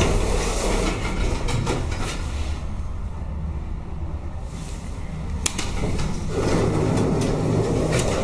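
1984 Valmet hydraulic lift in operation: a steady low rumble of the car travelling, with a few clicks, one sharp click about five and a half seconds in, and a louder rushing noise from about six seconds in.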